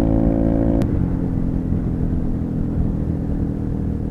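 Scooter engine running steadily under a low rush of riding wind. About a second in there is a single click, after which the engine's steady tone drops away and the sound eases down as the scooter slows.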